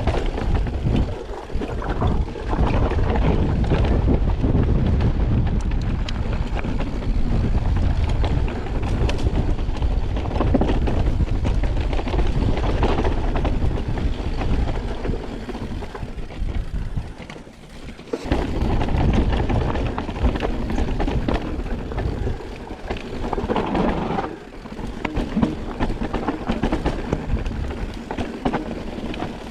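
2020 Specialized Enduro mountain bike descending a dirt trail, with wind buffeting the camera microphone and the tyres rumbling over the ground. The noise dips briefly about two-thirds of the way through, then picks up again.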